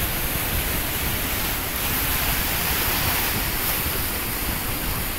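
Ocean surf breaking and washing over rocks, a steady rushing that swells a little midway, with wind rumbling on the microphone.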